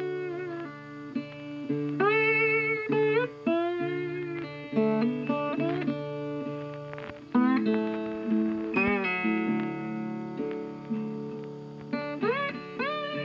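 Jazz background music led by guitar, playing single notes that bend up into pitch and waver, over a walking bass line.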